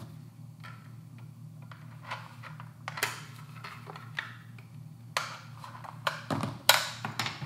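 Small plastic clicks, taps and scrapes as a Magpul PMAG Gen 3 polymer magazine's floorplate is worked loose with a knife tip, to fit a Ranger floorplate. A few sharper clicks come about three, five and six seconds in, over a low steady hum.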